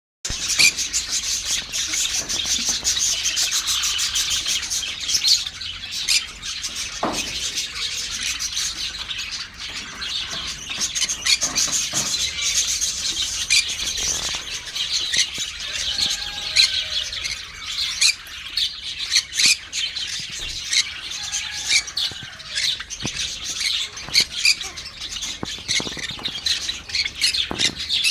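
A flock of Java sparrows (Java finches) chirping and chattering without pause, a dense tangle of many short, high calls overlapping one another.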